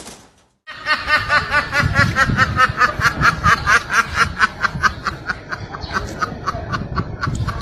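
Ayam Ketawa rooster crowing its long, laughter-like crow: a rapid run of short repeated syllables that starts just under a second in and keeps going until near the end.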